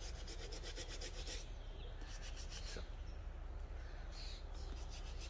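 A brush scrubbing the side and sole of a mesh sneaker in quick, even back-and-forth strokes.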